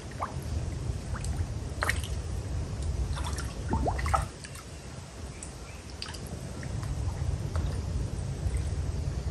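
Small water drips and plops on a muddy pond surface, scattered and irregular, over a low rumble. A short rising chirp sounds about four seconds in.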